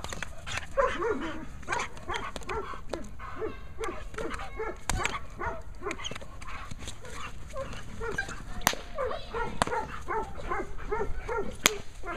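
German Shepherd barking rapidly and continuously, about three barks a second, at a decoy in a bite sleeve during protection training, with a couple of sharp cracks in the second half.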